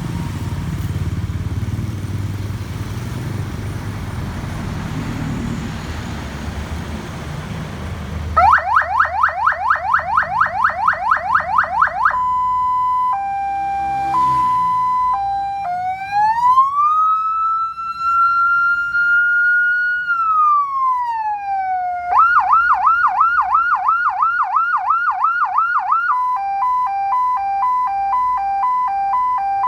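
For about the first eight seconds, only a low rumbling noise. Then an electronic emergency-vehicle siren cycles through its tones: a fast repeating rising yelp of about three sweeps a second, a two-tone hi-lo, a slow wail that climbs, holds and falls, a fast yelp again, and a stepped alternating tone near the end.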